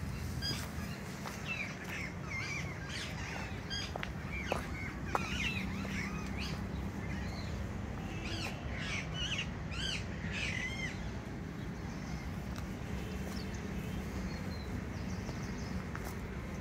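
Several birds calling in quick series of short chirps, busiest for the first ten seconds or so and thinning out after, over a steady low hum.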